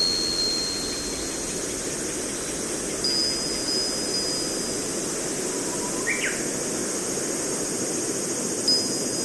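High, clear chime tones struck a few times, each ringing on for a second or two, over a steady rushing noise. A brief high chirp sounds about six seconds in.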